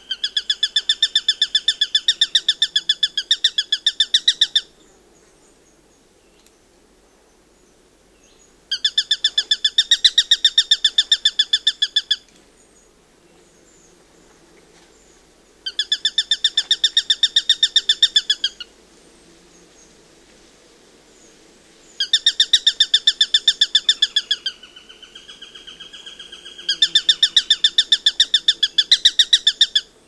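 Eurasian sparrowhawk calling in a rapid chattering series of repeated notes, the kek-kek-kek call. There are five bouts, each three to four seconds long with pauses between, and a quieter, lower chatter between the last two.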